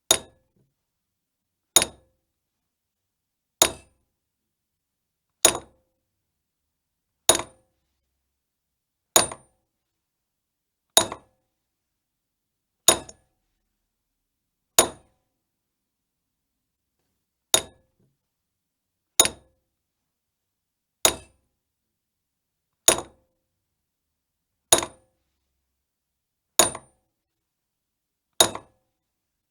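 A hammer striking metal: single sharp clinking blows at a steady pace of about one every two seconds, each ringing briefly. Sixteen blows, with one longer pause about halfway through.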